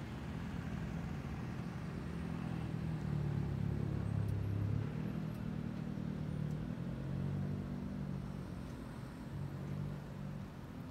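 Road traffic driving past close by: a minibus, an MPV and cars pass one after another. Their engines make a low rumble that swells and fades as each goes by, loudest about four seconds in.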